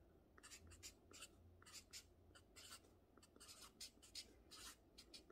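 Marker pen writing on notebook paper: a quick run of short, faint scratching strokes as characters are written by hand.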